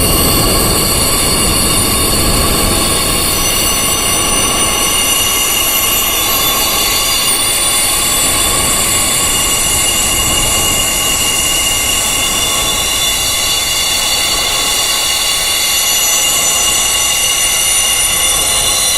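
Wind chimes ringing in a dense wash of many overlapping high tones that hold steady, with no single strike standing out.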